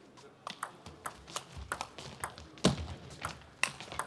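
Table tennis ball tapping and clicking in irregular sharp strokes as it is bounced on the table and racket around a serve, with a heavier knock about two and a half seconds in.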